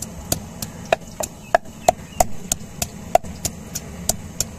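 Wooden pestle pounding garlic cloves in a wooden mortar: steady, evenly spaced knocks about three a second.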